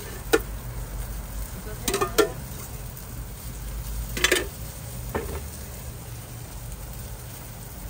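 Food sizzling on a street-stall toast griddle, broken by a few sharp metallic clinks and clatters of cooking utensils.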